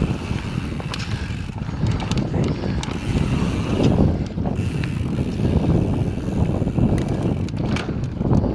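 Mountain bike riding a dirt trail: wind buffeting the microphone and tyres rumbling over the ground, with frequent clicks and rattles from the bike.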